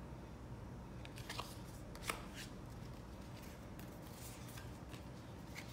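Tarot cards being handled: a few short slides and light taps as a card is laid down on the deck and the next one is drawn off.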